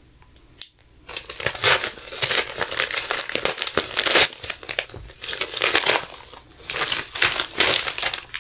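A plastic mailing envelope being opened by hand: a short click just under a second in, then repeated bursts of crinkling and tearing plastic as it is ripped open and pulled apart.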